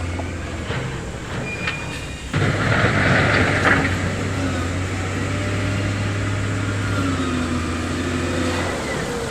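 Heavy diesel engine of earthmoving machinery running with a steady low drone. About two seconds in the sound turns suddenly louder, with a rough rushing rattle for a second or two before settling back to the engine.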